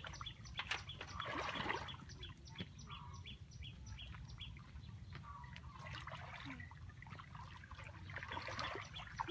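Bare feet wading and sloshing through shallow muddy water in soft splashes, with a high chirp repeating about three times a second through the first half.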